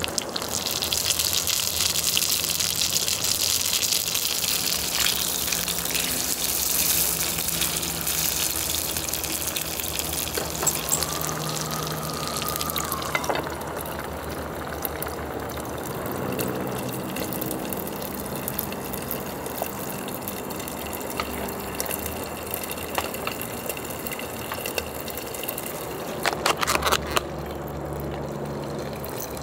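Electric hotpot-and-grill cooker: broth boiling and bubbling in one pan while meat sizzles on the grill plate. The hiss is loudest through the first half and drops to a quieter bubbling about halfway. Near the end comes a short run of sharp clicks as a plastic food container is handled.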